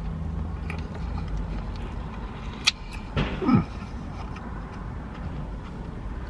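Road traffic passing, heard from inside a parked van, with a vehicle's engine hum fading out in the first second. A sharp click comes about two and a half seconds in, and a brief falling vocal hum follows just after.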